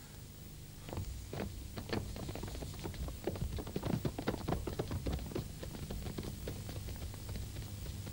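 Rapid, irregular patter of many footsteps, starting about a second in, busiest around the middle and thinning toward the end, over a low steady hum.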